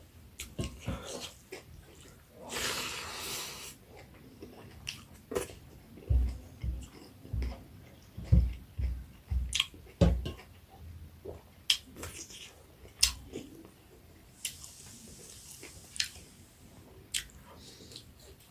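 A person eating pork curry close to the microphone: chewing with wet clicks and smacks, a short rushing noise about two and a half seconds in, and a run of low thumps of the jaw in the middle.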